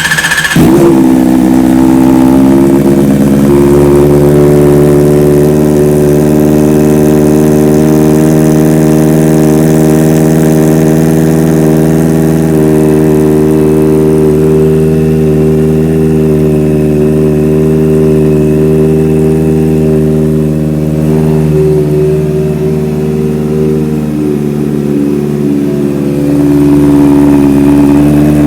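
Kawasaki ZX-4RR's 399 cc inline-four idling loudly through an aftermarket SC Project exhaust, right after starting. The note settles over the first couple of seconds, holds steady, and rises a little near the end.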